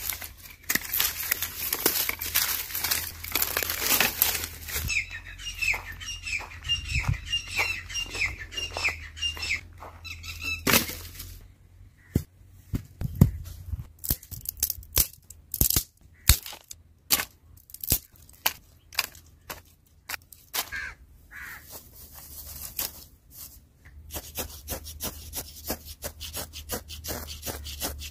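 Dry twigs snapping and dry leaves crackling as sticks are handled and laid for a small campfire, in many short sharp clicks. A bird calls a run of short falling chirps for a few seconds. Near the end a fast, steady scraping starts: a ferro rod being scraped against tinder.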